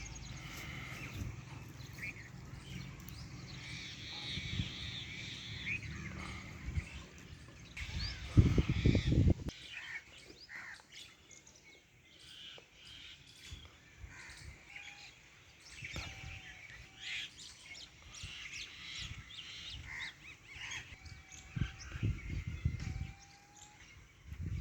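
Birds chirping and calling over a steady low hum that stops about eight seconds in. Just as the hum ends comes a brief loud low rumble, the loudest sound, lasting about a second and a half.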